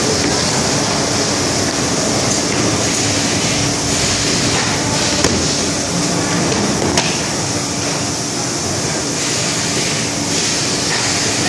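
Machinery of a semi-automatic box-making production line running steadily: conveyor and box-forming machines with a constant hum and a high hiss. Two sharp clicks stand out, about five seconds in and again a couple of seconds later.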